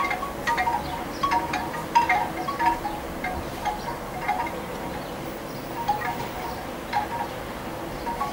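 Wind chimes ringing irregularly, a few fixed notes struck in loose clusters, busiest in the first few seconds, over a faint wind hiss.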